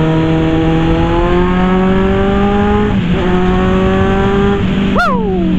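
Kawasaki Z1000 inline-four engine pulling under the rider, its pitch climbing steadily as the bike accelerates, dropping with an upshift about three seconds in, then climbing again. Wind and road noise run underneath.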